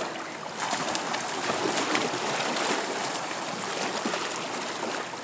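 Water sloshing and splashing among shoreline rocks as people move and swim in shallow lake water. It gets louder about half a second in.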